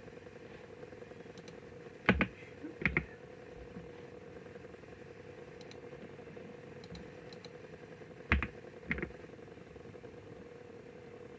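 Computer keyboard keystrokes: two pairs of sharp key clicks about six seconds apart, over a steady low hum.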